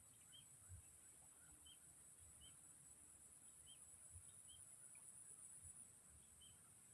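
Near silence of outdoor ambience: a faint, steady high-pitched insect drone, with short chirps recurring about once a second.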